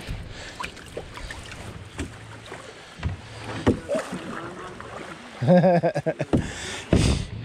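Canoe paddling on moving water: splashing with scattered sharp knocks. About five and a half seconds in, a loud pitched sound lasts just under a second.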